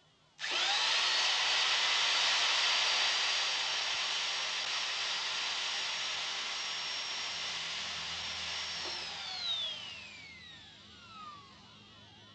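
Handheld corded electric drill switched on about half a second in, its motor whining up to speed and running steadily while the bit fails to scratch the hard casing it is pressed against. About nine seconds in it is switched off and winds down with a falling whine.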